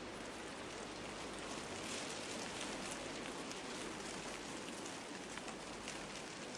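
Steady, even hiss of outdoor ambience, with faint scattered crackles.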